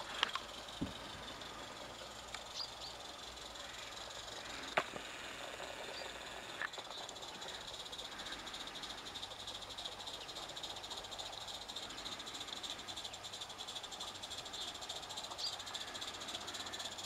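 Small IP Engineering 'Jane' live-steam garden locomotive with oscillating cylinders running, its exhaust a rapid, even chuffing with steam hiss that grows a little louder in the second half. A few sharp clicks come in the first seven seconds.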